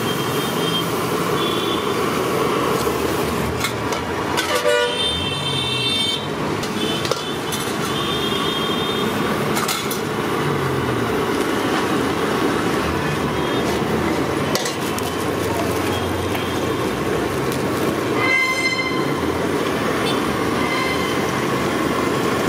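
Steady roadside traffic noise with vehicle horns honking briefly, once about five seconds in and again near the end.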